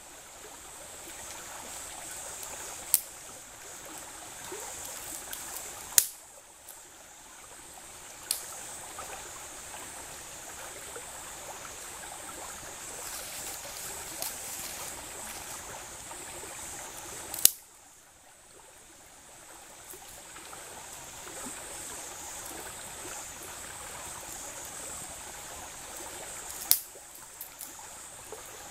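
Shallow stream running steadily, broken by about five sharp cracks of dry sticks, the loudest sounds, spread irregularly through it.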